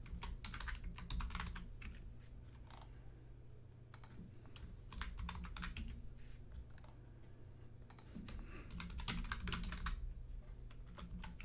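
Typing on a computer keyboard: several short runs of keystrokes with pauses between them.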